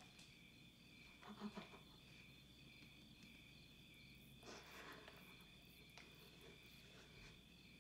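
Crickets chirping faintly in a steady, evenly pulsing trill, with two brief soft sounds about one and a half and about four and a half seconds in.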